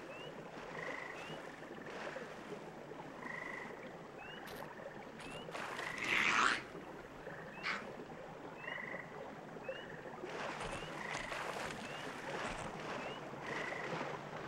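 Frogs calling at night: short high peeps and small rising chirps repeat about every second over a soft steady background hiss. There is a brief louder noise about six seconds in.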